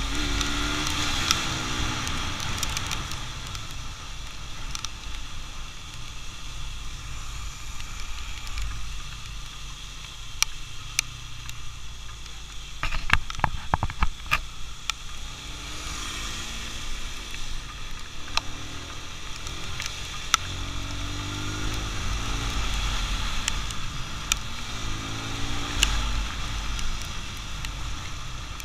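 Motorcycle engine running on the move, its pitch rising several times as it accelerates, over steady wind and tyre hiss on a wet road. A quick run of sharp clicks or knocks comes a little before halfway.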